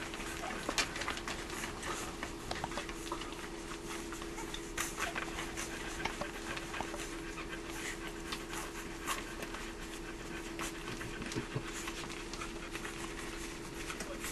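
A litter of newborn Brittany puppies snuffling and stirring, with many small quick clicks and rustles, over a steady low hum.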